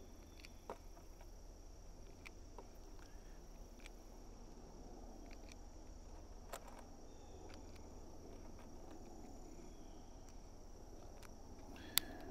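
Quiet outdoor ambience with steady high-pitched insect chirring, like crickets, and a few faint clicks. One sharp crack near the end.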